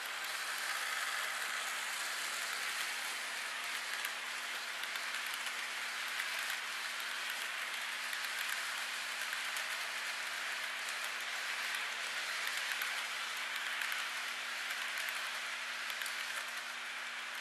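HO-scale model freight train rolling past close by: a steady rushing clatter of metal wheels on the track that builds over the first second or so and then holds.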